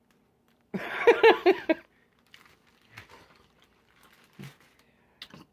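A short burst of voice about a second in, then faint crinkling of a fast-food paper wrapper being handled and pulled open around a chicken wrap.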